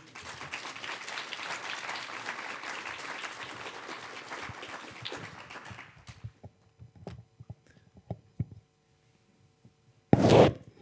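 Audience applauding for about six seconds, then dying away into a few faint knocks, with a loud thump near the end.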